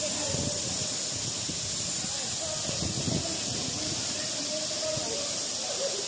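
Waterfall pouring into a pool: a steady rushing hiss of falling water and spray.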